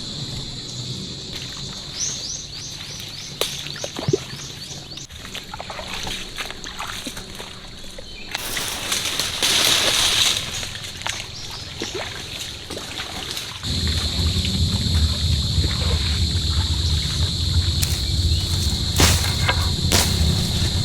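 Riverside swamp ambience: water sloshing and trickling, a few bird chirps and a steady high-pitched drone. A louder splash-like rush about halfway through, then a steady low rumble comes in about two-thirds of the way through and stays.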